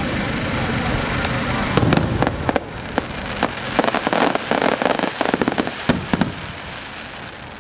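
Aerial firework shells bursting in a quick barrage: a run of sharp bangs and dense crackling that starts about two seconds in and dies away near the end, over a steady background noise.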